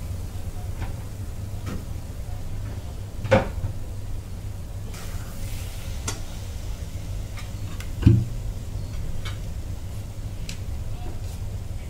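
Spatula scraping and knocking against a metal kadhai while stirring thick bottle-gourd halwa: scattered soft clicks and two louder knocks, about three and eight seconds in, over a steady low rumble.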